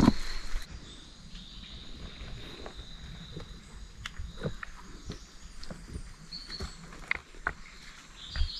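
Steady high-pitched insect drone of tropical rainforest, with scattered footsteps and small clicks on the rocky, leafy path.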